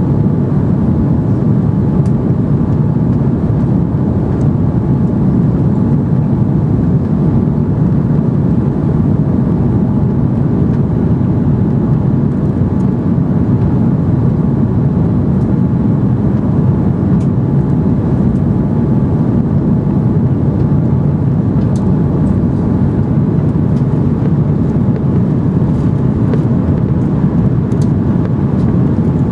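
Airbus A330 airliner heard from inside the cabin: a steady, loud low rumble that holds without any sudden change.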